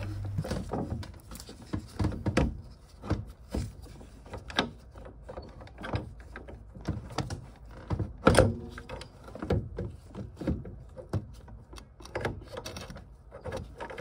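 Irregular clicks and knocks of a Vaillant combi boiler's circulating pump being worked loose by hand and pulled forward from its housing, with a louder knock about eight seconds in.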